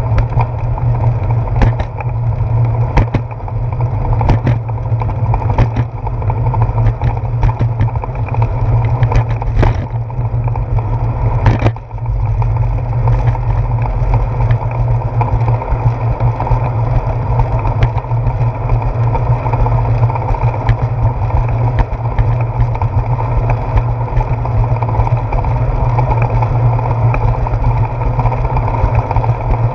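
Steady wind and ride rumble on a handlebar-mounted GoPro Hero 4 as a bicycle rolls along a concrete sidewalk, with sharp knocks from the bike and mount jolting over bumps, mostly in the first half.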